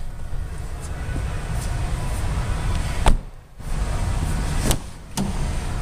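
A 2012 Nissan Maxima's door shut with one sharp thud about three seconds in, then a click near the end as a door is handled, over steady rustling of someone moving about the car.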